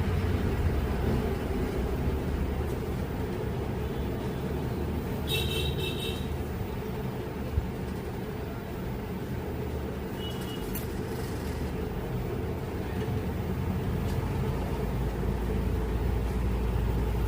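Steady low background rumble, with one sharp click about seven and a half seconds in and two short high squeaky chirps, one around six seconds and one around ten.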